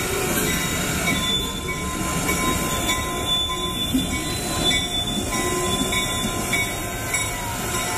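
Railroad locomotives running close by: a steady rumble, with a few thin, steady high-pitched tones above it.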